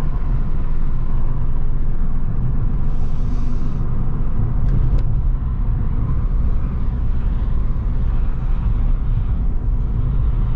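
Inside the cabin of a Ford New Fiesta 1.6 on the move: steady low engine and road rumble. A brief hiss comes about three seconds in, and two sharp clicks come near the five-second mark.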